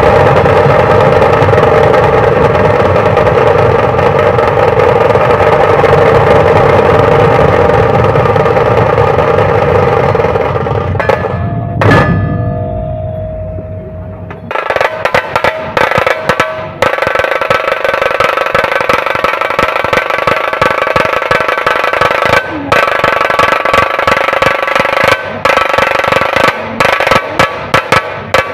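Dhol-tasha troupe drumming loudly: massed dhol barrel drums and tashas in a dense, continuous din that fades out about halfway through, followed by a fresh passage of fast, sharp drum strokes.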